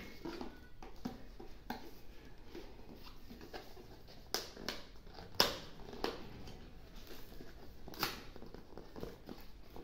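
Hands handling and turning over a small cardboard product box, prying at its lid: scattered light taps, scrapes and rustles of cardboard, with a few sharper knocks in the middle and near the end.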